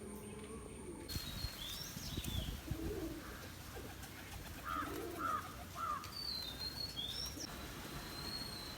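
Domestic pigeons cooing, low and brief, a couple of times, with higher chirps and thin whistles from other birds.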